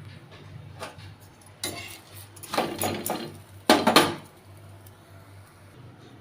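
Dishes and cutlery clinking and clattering in several short bursts through the first four seconds, over a faint steady low hum.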